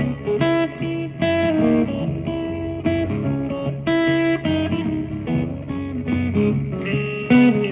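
Guitar being played, plucked notes and chords following each other a fraction of a second apart.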